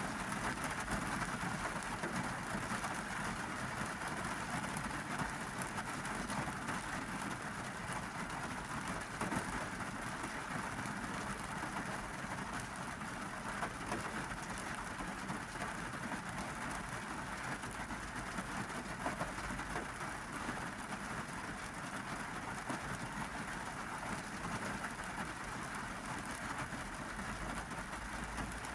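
Steady heavy rain drumming on a car's roof and windows, heard from inside the cabin.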